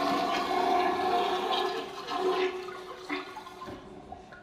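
Toilet flush sound effect played back over a stage sound system: a loud rush of water that dies away about three seconds in.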